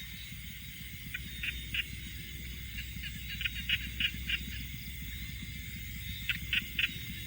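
Frogs calling in three bursts of short, quickly repeated calls, over a steady low rumble.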